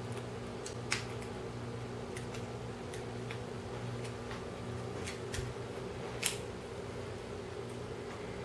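Scattered small clicks from handling a Deutsch connector and its pins while wires are repinned into it, about ten over several seconds, the sharpest about six seconds in, over a steady low hum.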